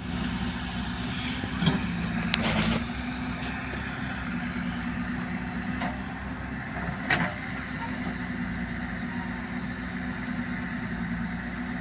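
Diesel engine of a JCB 3DX backhoe loader running steadily, with a few sharp metallic knocks, the loudest a little under two seconds in and about seven seconds in.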